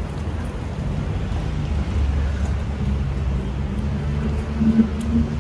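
Steady low rumble of street traffic, growing louder about two seconds in.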